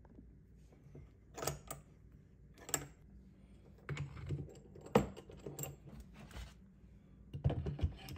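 A series of sharp clicks and knocks, loudest near the end: a magazine-well vise block is handled and set in a bench vise, and a rifle's lower receiver is seated onto it.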